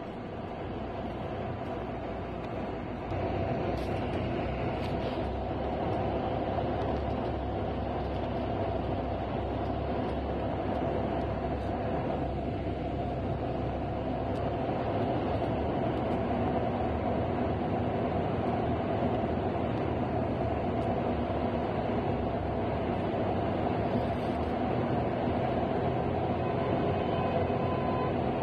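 Steady drone of a large vehicle's engine and running noise heard from inside the cabin, with a low, even hum. It gets louder about three seconds in.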